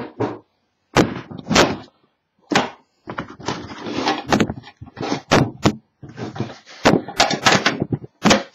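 A cardboard trading-card box being handled and opened: a string of sharp, irregular knocks and thumps, with a stretch of rustling near the middle.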